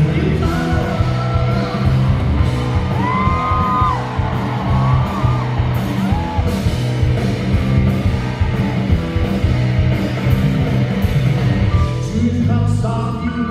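Live rock band playing loudly, electric guitars, bass and drums, with voices whooping and singing over it in the first half.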